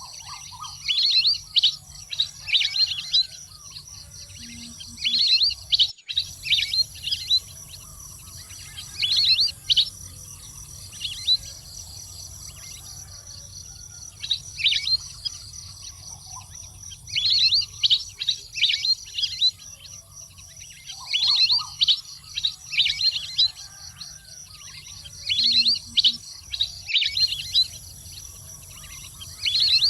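Water-duck calls: bouts of rapid, high-pitched chirping calls, each lasting a second or two and coming again every few seconds, over a steady low hum.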